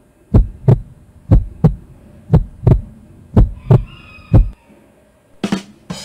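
Heartbeat sound effect: low lub-dub double thumps about once a second, four pairs and then a single beat. Near the end comes a short, sharp percussion hit.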